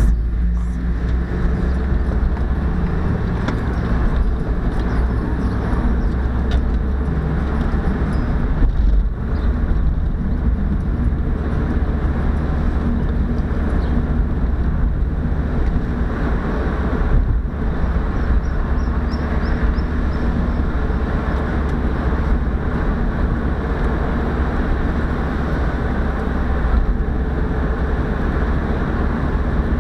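Mazda MX-5's inline four-cylinder engine running steadily while driving, with tyre and road noise, heard from inside the cabin.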